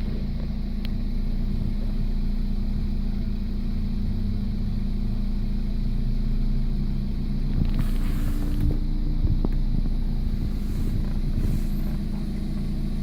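BMW 318i E36 four-cylinder engine running steadily on a test run after a thermostat replacement. A brief hiss comes about eight seconds in.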